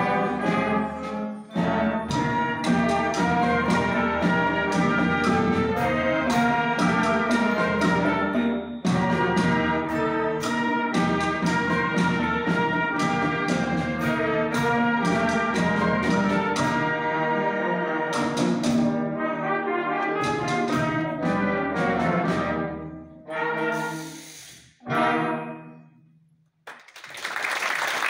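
Youth concert wind band playing, brass and woodwinds with sharp percussion strikes. The piece closes with a few separate short chords about 23 to 25 seconds in. After a brief silence, audience applause breaks out near the end.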